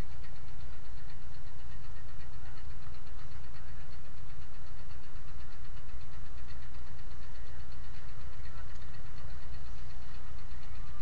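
A fishing boat's engine running steadily, a low, even throb with a fast knocking rhythm.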